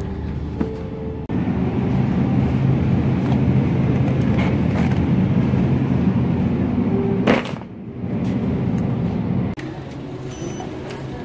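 Wire shopping cart rattling and rumbling as it is pushed across a store's hard floor. The sound is loudest through the middle and breaks off abruptly about nine and a half seconds in.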